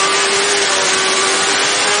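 BMW S1000RR inline-four superbike engine running hard at high revs under full load, its pitch creeping slowly upward, heard from onboard with heavy wind rush over the bike.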